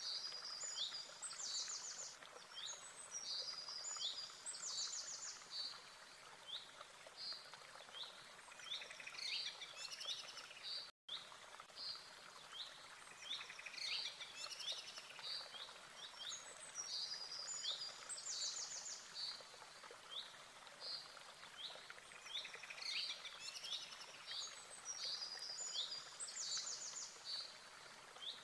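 Several birds chirping and singing, quick high chirps and fast trills over a steady background hiss, cutting out for an instant about eleven seconds in.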